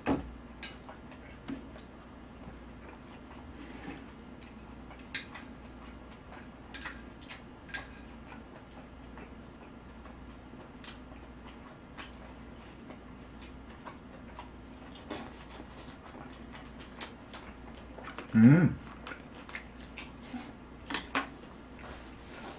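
Scattered light clicks of wooden chopsticks against the plates, pan and bowl while eating, over a faint steady hum. About 18 seconds in, one short loud voiced sound that rises and falls in pitch.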